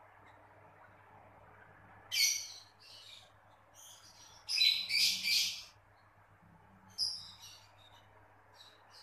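Masked lovebird chicks giving short, hissing begging calls while being spoon-fed formula: several separate bursts, with a longer, louder run about halfway through.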